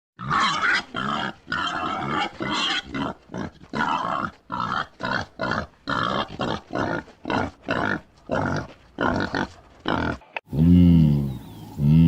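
Boar grunting in a long run of short, rough grunts, about two a second. About ten and a half seconds in, it switches to a cow mooing with a deep, drawn-out call.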